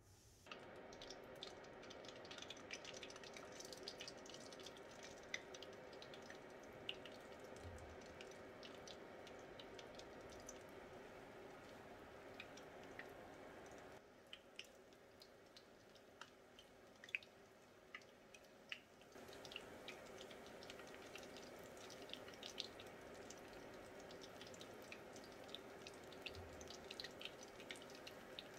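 Hot oil faintly sizzling with scattered sharp crackles and pops as chicken lollipops deep-fry. It is a little quieter for a few seconds in the middle.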